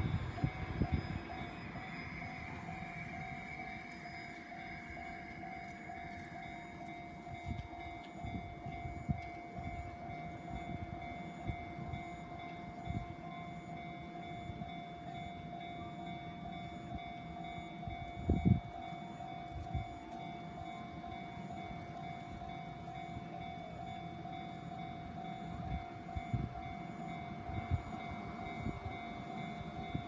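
Japanese railway level-crossing warning bell ringing with a steady, evenly repeating electronic tone while the barriers are down. Low rumbles and thumps sit under it, the strongest about halfway through.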